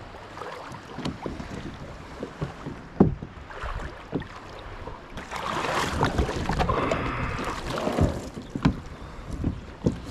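Shallow water splashing and sloshing as a sit-on-top fishing kayak is pushed off from the shore and climbed into, with scattered knocks against its plastic hull. The splashing is loudest for a few seconds in the middle.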